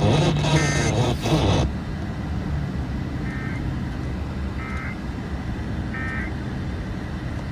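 Emergency Alert System end-of-message data bursts: short, buzzy two-tone digital chirps repeated about every second and a half, three of them in a row, signalling the close of the alert. Before them, a louder dense sound carrying one more burst cuts off abruptly about a second and a half in.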